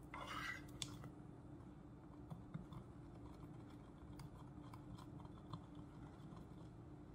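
A stirring stick scraping and tapping against the inside of a plastic test tube as red cabbage powder is stirred to dissolve. There is a short scrape at the start and a click just under a second in, then scattered faint light clicks.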